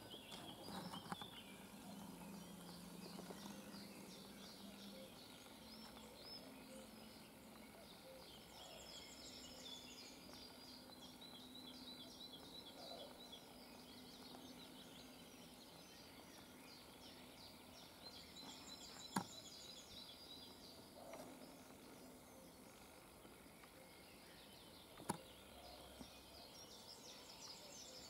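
Faint birdsong from small songbirds trilling and twittering in spring woodland over a quiet background, with a low steady hum in the first half. Two sharp clicks, the loudest sounds, come about two-thirds of the way through and again some six seconds later.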